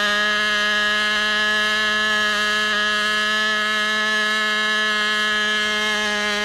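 Model airplane engine running at a steady high speed, a loud, even buzzing drone that holds one pitch.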